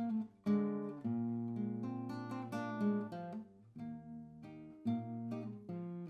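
Solo classical guitar played fingerstyle: a run of plucked notes, with a brief break just after the start and a softer passage around four seconds in.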